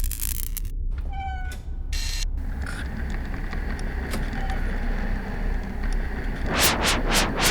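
Synthesised sci-fi sound effects over a steady low hum: a short burst of white noise at the start, a brief pitched electronic tone about a second in, another noise burst, then three quick whooshes near the end.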